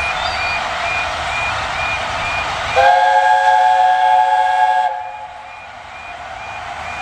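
A level-crossing warning alarm beeps steadily, about two beeps a second. About three seconds in, the chime whistle of the LNER A4 steam locomotive Sir Nigel Gresley sounds one steady chord for about two seconds, the loudest sound, then cuts off.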